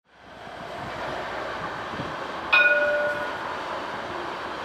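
Alstom Citadis 302 tram's warning bell struck once about halfway through, a bright ringing tone that fades within a second. Behind it is the steady background noise of the tram rolling in at the stop.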